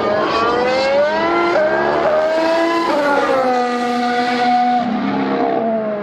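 2019 Formula 1 car's 1.6-litre turbocharged hybrid V6 running hard past the microphone, its pitch climbing and breaking at a gear change about a second and a half in, climbing again, then stepping down around three seconds in and once more near the end.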